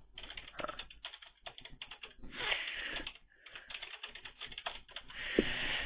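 Typing on a computer keyboard: an uneven run of key clicks with short pauses, and two short stretches of hiss among them.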